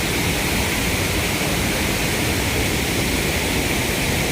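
Steady rushing of a waterfall, an even unbroken roar of falling water.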